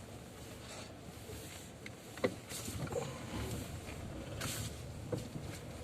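Low, steady running noise of a car heard from inside the cabin as it moves slowly, with a sharp click about two seconds in and a few fainter knocks and rustles.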